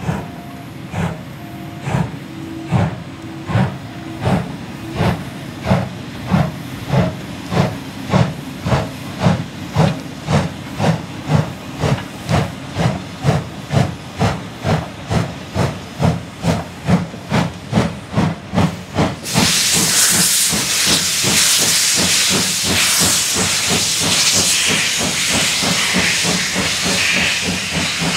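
Steam locomotive D51 200 working hard, its exhaust beats quickening as it picks up speed. About two-thirds of the way through, a loud, steady hiss of steam starts and drowns out the beats.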